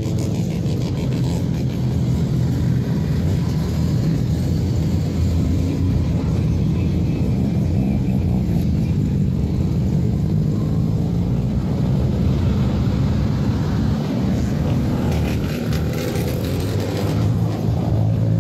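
Engines and exhausts of a slow procession of cars, many of them Mazda rotary-engined, rumbling past at low revs in a steady, unbroken mass.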